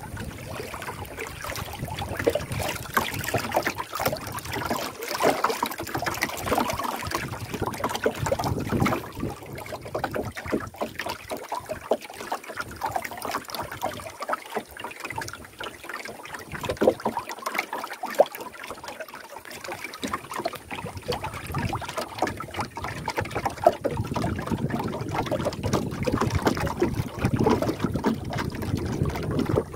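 Water lapping and slapping irregularly against the hull of a small wooden boat.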